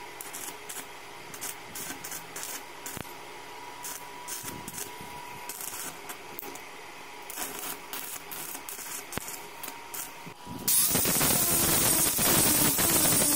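Stick (arc) welding on steel: the electrode's arc crackles and sizzles irregularly. About eleven seconds in, an angle grinder takes over, much louder, its disc grinding steadily against the steel weld.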